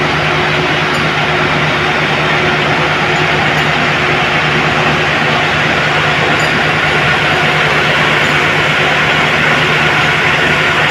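Heavy engine-driven machinery running steadily: a constant low engine hum under a dense, unchanging mechanical noise.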